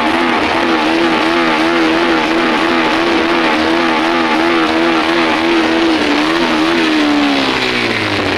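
Bajaj Avenger 160 motorcycle on the move: its single-cylinder engine note wavers slightly over a loud rush of wind and road noise, then drops in pitch near the end as the bike slows.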